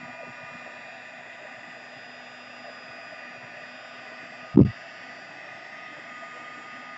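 Embossing heat gun blowing steadily, a hiss with a faint motor whine, melting embossing powder from under the paper. A single dull thump about four and a half seconds in.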